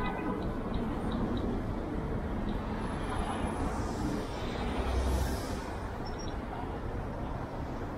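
Street traffic at a busy downtown intersection: a steady wash of car and bus engines and tyres, swelling as a vehicle passes close about four to five seconds in.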